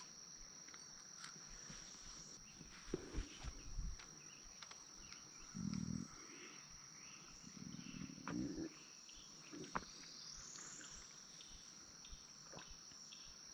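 Insects trilling in a steady high drone, with a few soft low bumps and rustles scattered through it.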